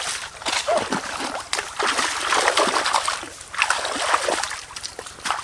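Shallow stream trickling over rocks, with irregular splashes from feet and hands wading and reaching into the water.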